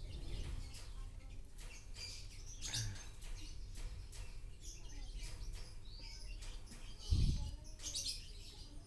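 Small birds chirping in the background, with scattered faint clicks and a single low thump about seven seconds in.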